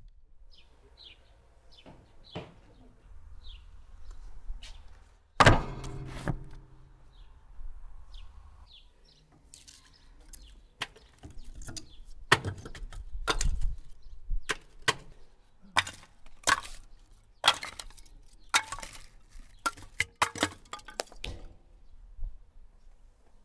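Pieces of split firewood dropped one by one into a tandoor's fire pit: a run of sharp wooden knocks and clatters through the second half. Birds chirp in the first few seconds, and a single loud thud with a short ring comes about five seconds in.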